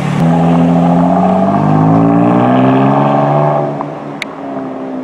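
BMW F80 M3 Competition's twin-turbo 3.0-litre inline-six sounding through its exhaust as the car pulls away, the engine note rising slowly in pitch. The sound falls away sharply near four seconds in.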